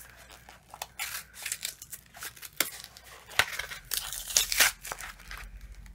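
A new pack of Chibitronics LED sticker lights being torn open by hand, with crinkling of the packaging and scattered sharp clicks in irregular bursts.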